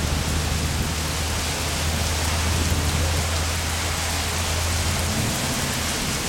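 Heavy rain pouring down, a dense steady hiss of rain hitting pavement and surfaces. Underneath runs a low steady rumble that shifts higher about five seconds in.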